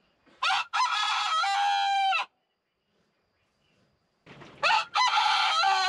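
Rooster crowing twice, each crow about two seconds long.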